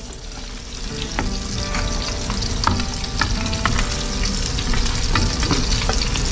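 Vinegar-marinated milkfish frying in a pan of hot oil, sizzling steadily with scattered pops and crackles, beside a pot of water at the boil.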